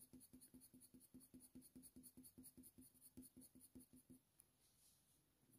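Faint, quick strokes of a coloured pencil on hot-press watercolour paper, about six a second, laying in short fur lines. They pause for about a second near the end.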